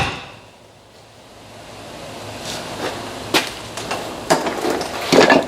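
Scattered sharp knocks and clunks of hand tools striking and working the rear suspension parts: a strike right at the start, a short quiet stretch, single knocks about three and four seconds in, and a quick cluster of knocks near the end.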